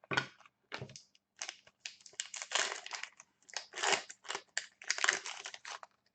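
Plastic trading-card packaging crinkling and rustling in the hands, in irregular bursts.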